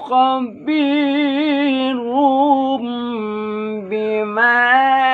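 A man's solo Qur'an recitation in the melodic tilawah style, sung without accompaniment: long held notes with a wavering vibrato, stepping between pitches, with a short breath about half a second in.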